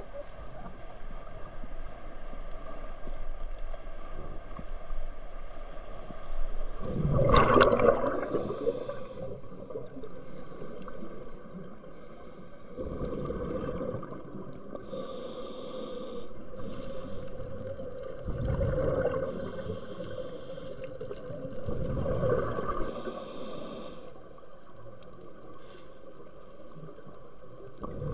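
Scuba diver breathing through a regulator underwater. Exhaled bubbles rumble every four to five seconds, and each breath in comes between them as a short hiss.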